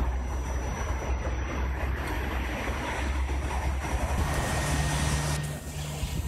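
Electric passenger train rumbling along the station tracks. About four seconds in a steady low hum joins, as the EN57 electric multiple unit runs in alongside the platform.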